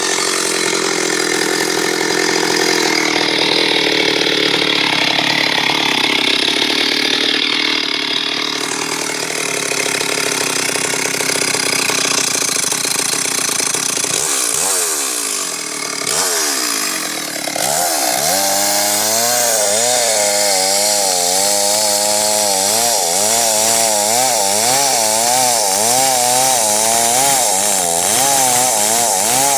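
Chainsaw running while cutting through a big tree, its engine pitch wavering up and down under load. A little past halfway the engine dips and picks up again.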